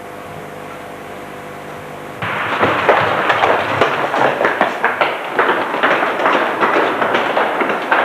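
A steady hum with held tones, then about two seconds in a sudden loud, dense run of irregular cracks and bangs, like a string of firecrackers or a gunfire sound effect.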